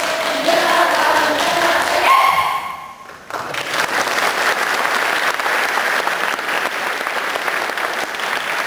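Saman dance troupe singing in unison, their last line cut off sharply about two and a half seconds in. After a brief lull, an audience breaks into steady applause that lasts to the end.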